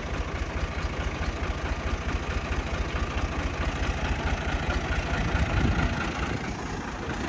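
Al-Ghazi tractor's diesel engine running hard under heavy load with a steady low firing beat. It grows louder to a peak about five to six seconds in, then eases off briefly near the end.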